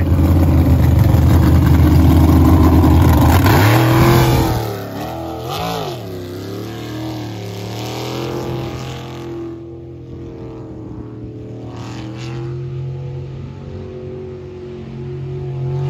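Jet sprint boat's engine running hard and loud at first, then dropping away about four seconds in as the boat heads off down the course, its revs rising and falling through the turns.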